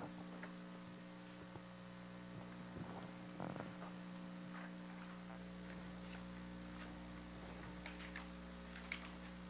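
Steady electrical mains hum in the recording, with a few faint short clicks about a third of the way in and again near the end.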